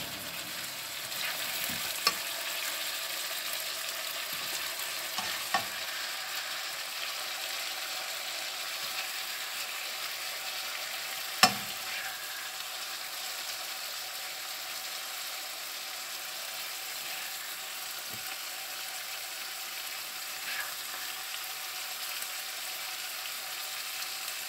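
Stir-fried minced pork and vegetables sizzling steadily in a nonstick frying pan on the hob, with a few light clicks of a spatula being scooped through the pan; the loudest is one sharp knock about halfway through.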